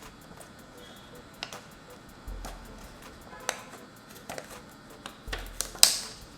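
Sharp plastic clicks and snaps, loudest near the end, as clips let go while the plastic back panel of a Redmi Note 11 is pried off, over background music with a low pulse about every three seconds.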